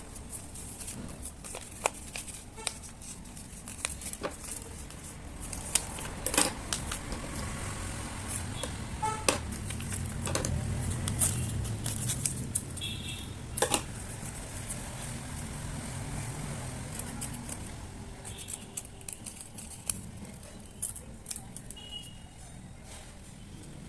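Paper being handled and cut while a mask is made: scattered sharp clicks and rustles over a low steady rumble.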